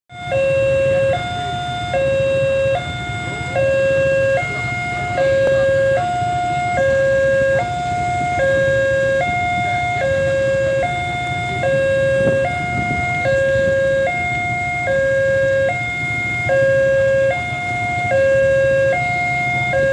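Railway level-crossing warning alarm sounding a steady two-tone signal, low and high tones alternating about every three-quarters of a second, while the barrier is down for an approaching train. Motorcycle engines idle underneath.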